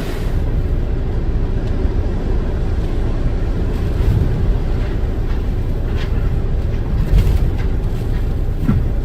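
Steady low rumble of a car driving through hurricane winds, wind and road noise buffeting the vehicle, with a few faint ticks.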